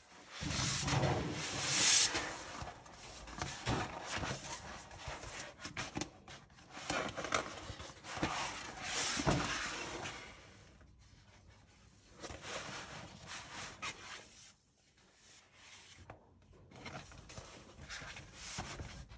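A folded paper map being unfolded and flattened by hand: paper rustling and crinkling in bursts, loudest near the start and again about nine seconds in, then quieter handling.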